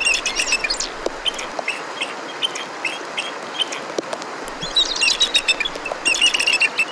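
Bald eagle calling: rapid series of short, high, squeaky chittering notes, like a giant angry mouse. One burst comes at the start and another a little past the middle, with scattered single notes between, over a steady background hiss.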